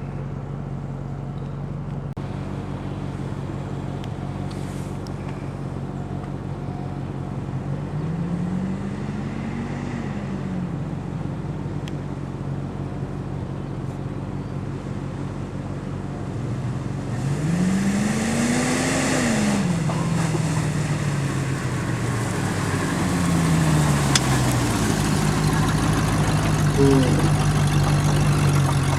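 Off-road 4x4 engine running steadily, revved up and back down twice, about a third of the way in and again past the middle, the second time with a rush of hissy noise. After that it drops back and runs louder toward the end.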